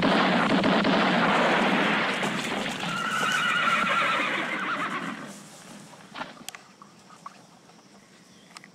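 Western film soundtrack: a sudden loud burst of noise, with a horse whinnying about three seconds in. It dies away after about five seconds into faint scattered clicks.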